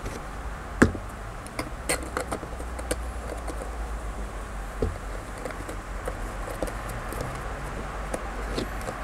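Scattered light clicks and knocks of hard plastic as a plastic storage box is handled and a small 3D-printed plastic fitting is worked into its base by hand, the sharpest knock about a second in, over a steady low background rumble.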